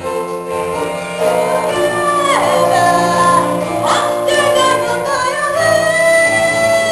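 Singing of a musical-theatre song on stage. The voice slides between notes and holds one long note near the end.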